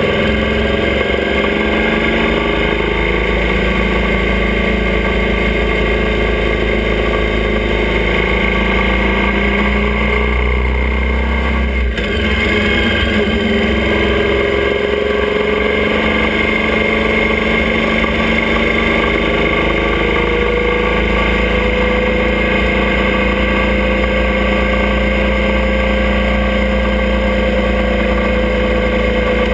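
Motorcycle engine of a sidecar outfit running steadily under way, with a steady rush of wind over it. The engine note wavers, dips briefly about twelve seconds in, then climbs slowly.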